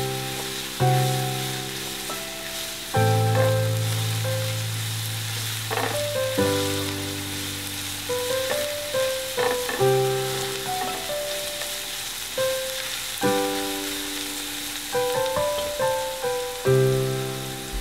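Minced garlic sizzling steadily in hot oil in a frying pan, stirred with a wooden spatula, under soft background music of slow chords that is louder than the sizzle.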